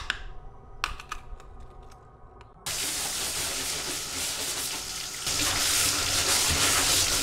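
A few sharp clicks and knocks. Then, about two and a half seconds in, water starts rushing from a tap into a bathtub, and it gets louder about five seconds in.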